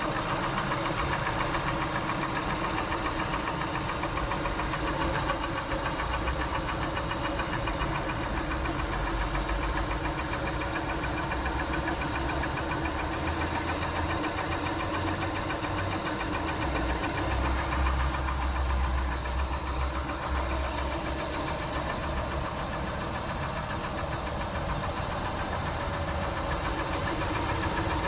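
Lada Vesta engine running steadily at operating temperature with a knock in it: a knocking noise that appears once the engine is warmed up.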